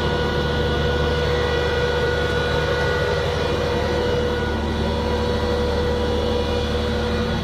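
Steady machinery hum on a squid-jigging boat: a low drone with several held whining tones over it. One higher tone fades out about halfway through.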